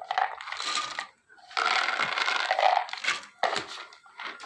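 Raw peanuts poured into a stainless-steel pan of oil, rattling against the metal in two pours, followed by a few single clicks.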